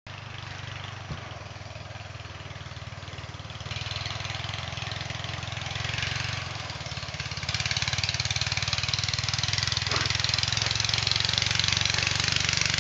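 Riding lawn mower's engine running with a rapid, even beat, getting louder in two steps, about four seconds in and again just past the halfway mark.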